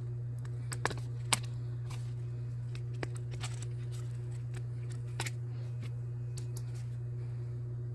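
Scattered light clicks and taps from handling the box and bracelet during an unboxing, the sharpest about a second in, over a steady low hum.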